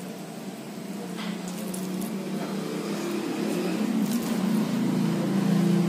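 A steady engine hum that grows gradually louder, over the light crackle of cabbage manchurian balls deep-frying in a kadai of oil, with a few small pops.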